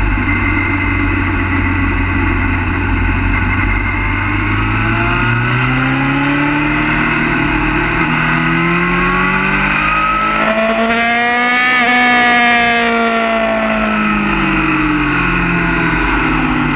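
Yamaha FZ6 motorcycle's 600 cc inline-four engine heard from on board, running steadily at low revs, then its pitch climbs smoothly over several seconds to a peak about twelve seconds in and eases back down as the bike picks up speed.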